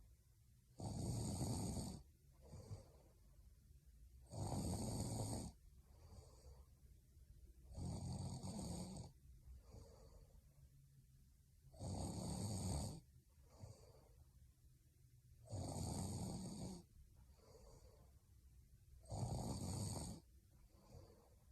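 A young woman snoring in her sleep: six snores, one every three and a half seconds or so, each about a second long, with quieter breathing between them.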